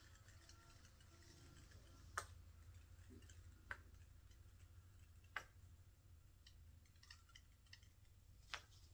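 Near silence over a low steady hum, broken by a few small sharp clicks, four of them clearer and spaced a second or two apart, with a few fainter ones near the end.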